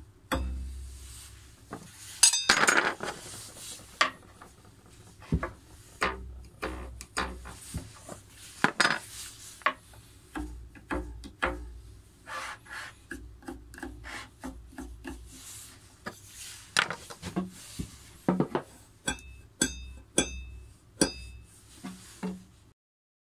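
Metal putty-knife blade pressed against the edge of a wooden box and flicked and scraped: a run of sharp clicks, knocks and rubbing. Near the end several plucks ring briefly with a short metallic tone. The spatula is being tried out as a stand-in for a marimbula's plucked metal tine.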